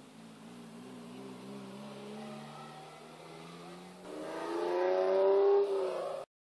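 Car engine, first a lower steady note, then revving up as a car accelerates past, rising in pitch and getting louder from about four seconds in, then cutting off suddenly.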